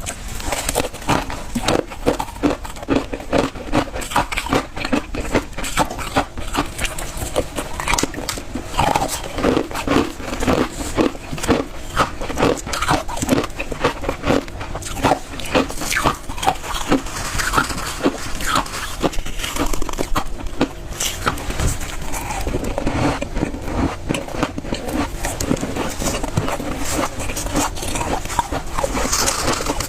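Close-miked crunching and chewing of refrozen freezer-frost ice, a dense, continuous run of crisp crackling bites.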